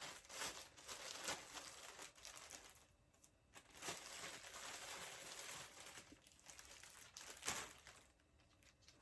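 Faint, intermittent crinkling and rustling of packaging being unwrapped by hand.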